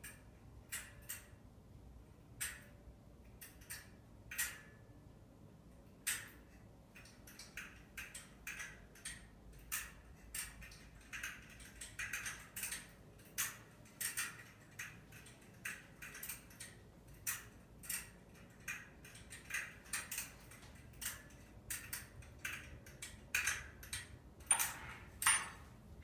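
Underwood manual typewriter keys striking the paper: irregular sharp clicks, about one a second at first, then coming faster in quick clusters like steady typing from about six seconds in.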